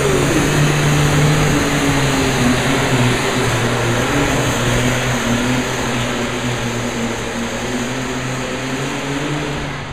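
Super stock class pulling tractor's engine running flat out under load during a pull: a loud, steady engine note under a dense hiss that eases slightly near the end.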